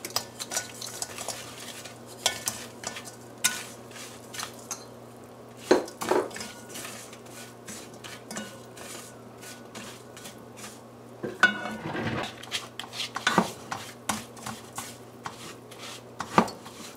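Spoon stirring and scraping sugar around a karahi, with irregular clicks and scrapes of the spoon against the pan. There are a few louder knocks about six, twelve and sixteen seconds in, over a steady low hum.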